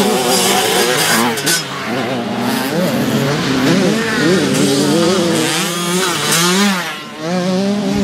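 Several youth dirt-bike engines revving hard, their notes overlapping and rising and falling as the riders accelerate over the rise and jump, with a brief drop in level about seven seconds in.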